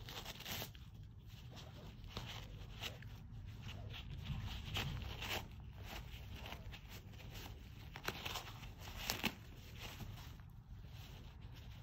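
Miniature schnauzer puppy tearing and chewing a roll of toilet paper: irregular ripping and rustling of paper, with two sharper clicks about eight and nine seconds in.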